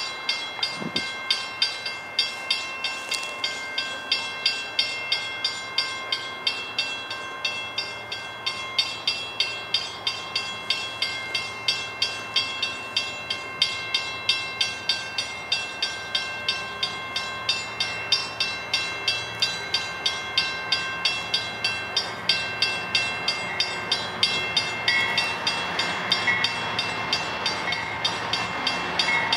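Railroad grade-crossing bell ringing steadily at about three strikes a second. Near the end the rumble of the approaching freight train's diesel locomotives grows underneath it.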